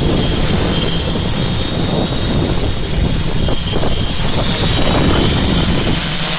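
Quadcopter's electric motors and propellers running in flight, with heavy wind rumble on the microphone. The sound cuts in suddenly at the start, and near the end the rumble eases and a steady, layered motor hum comes through.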